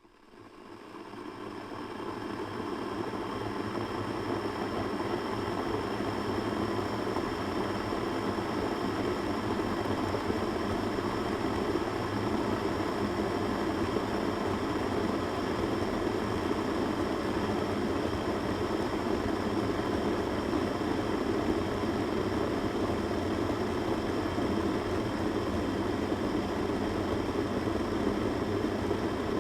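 Electric kettle boiling water: a steady hiss and rumble that swells up over the first few seconds and then holds even.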